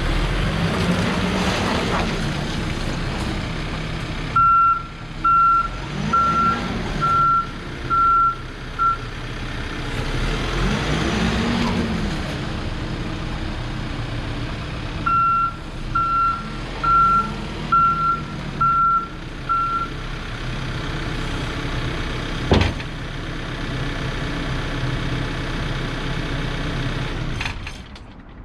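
Case 590SN loader backhoe's diesel engine running and revving up and down as the machine is driven, with its reverse alarm beeping in two runs of six beeps about a second apart. A single sharp knock about two-thirds of the way through is the loudest moment, and the engine sound drops away near the end.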